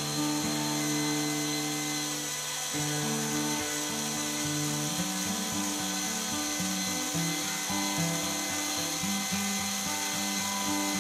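Small yellow geared DC hobby motor running with a steady whine, under background acoustic guitar music.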